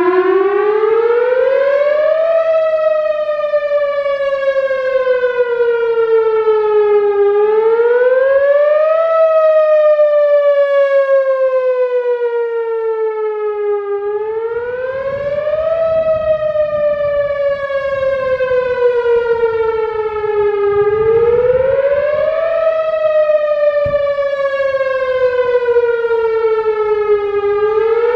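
Whelen Vortex R4 rotating electronic outdoor warning siren sounding the wail tone of its monthly test. The pitch climbs quickly, then sinks slowly, over and over about every six and a half seconds.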